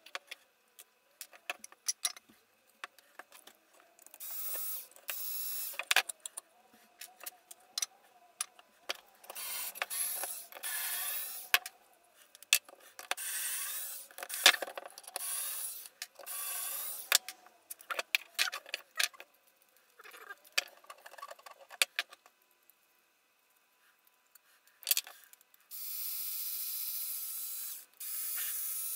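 Small cordless screwdriver running in several short bursts of a second or two, backing screws out of a wooden frame, with the longest run near the end. Between the bursts, wood pieces and screws knock and clatter as they are handled.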